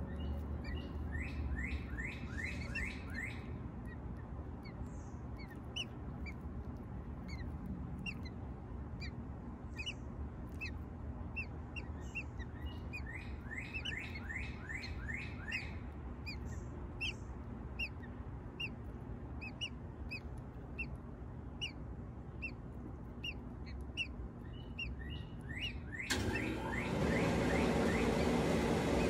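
Birds chirping: scattered short, high chirps with two quick runs of falling notes, over a steady low rumble. Near the end a louder, even rush of noise starts suddenly.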